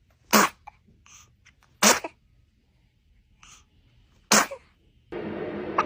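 A baby sneezing three times, each a short sharp burst, with faint little breaths between them. About five seconds in, a steady background hiss starts abruptly.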